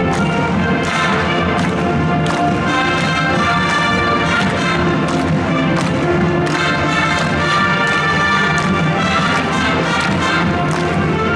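Large combined wind band playing: brass and woodwinds hold a melody over regular drum and percussion strikes.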